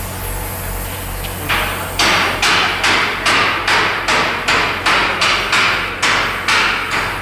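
Rhythmic hammering in a metalwork shop: about fourteen sharp blows at a steady two and a half a second, starting about one and a half seconds in and stopping just before the end.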